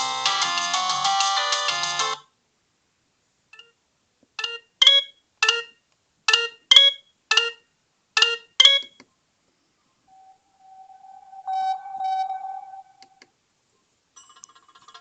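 Sagem my700X mobile phone playing its built-in ringtones through its small speaker: a polyphonic electronic melody stops about two seconds in, and after a pause comes a run of about nine short electronic beeps, then a steady tone lasting a couple of seconds.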